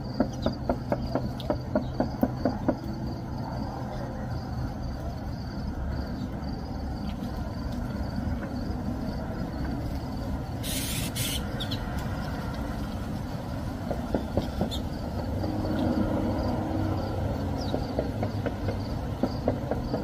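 A steady low machine hum, with runs of quick light ticks in the first few seconds and again in the last several seconds, and a brief hissing rush about eleven seconds in.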